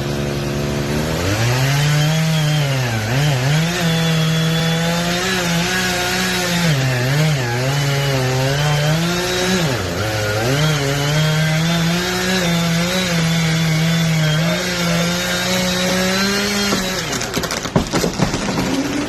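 Two-stroke chainsaw making a felling cut in a large tree, running hard with its engine pitch dipping and recovering again and again as it bogs in the wood. The saw stops about two seconds before the end, giving way to a series of sharp cracks.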